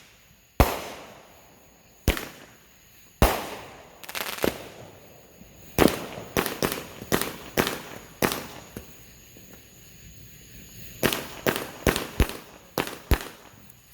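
Consumer multi-shot aerial firework cake firing: sharp bangs with echoing tails, the first ones about a second apart, then quick flurries of shots around the middle and again near the end.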